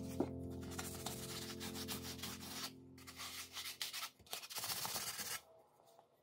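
Sandpaper on a hand sanding pad rubbing over a walnut cutting board in irregular back-and-forth rasping strokes. It breaks off briefly twice and stops for about the last second.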